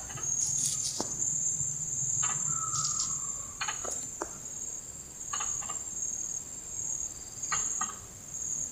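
Insects, crickets or the like, trilling in one steady high-pitched band through the riverside vegetation. A few brief, soft noises come through now and then, and there is a low hum for the first few seconds.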